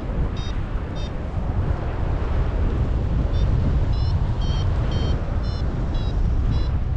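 Wind rushing over the microphone in flight, with a paraglider's variometer beeping about twice a second, the signal that the glider is climbing in lift. The beeps stop for a couple of seconds and resume about three seconds in.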